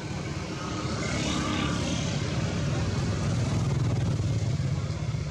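A steady low engine drone, growing louder toward the middle, with faint voices about a second in.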